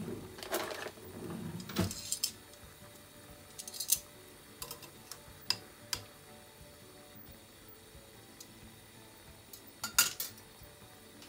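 Metal kitchen tongs clicking and knocking against an earthenware donabe as a hamburger patty simmering in sauce is turned over. There is a scraping, rustling stretch in the first two seconds, then scattered sharp clicks, and a loud cluster of knocks near the end.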